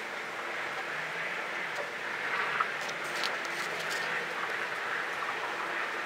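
Steady outdoor background hiss, with a few brief clicks and one sharper tap about two and a half seconds in.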